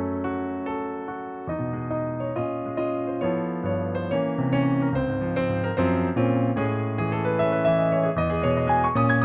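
Yamaha P-515 digital piano played: sustained chords in the low and middle register with a melody moving over them. The sound dies away over the first second and a half, then a new chord is struck and the playing continues.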